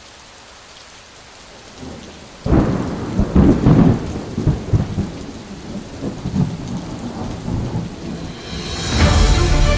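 Thunderstorm: steady rain hiss, then a loud clap of thunder about two and a half seconds in that rumbles on and fades over several seconds. Music comes in near the end.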